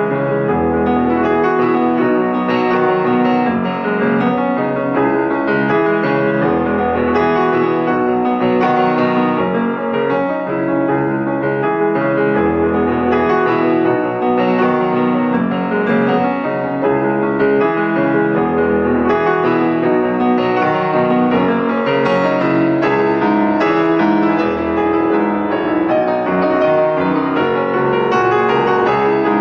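Instrumental piano music playing steadily, with a low bass note sounding about every six seconds.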